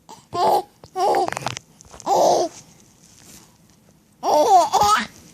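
Baby laughing in three short, breathy bursts, then a longer pitched vocal sound about four seconds in.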